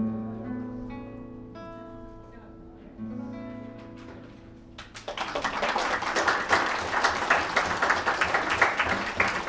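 Cello and guitar holding the closing notes of the piece: a low sustained note, with guitar chords struck at the start and again about three seconds in, fading away. About five seconds in, audience applause breaks out and is louder than the music.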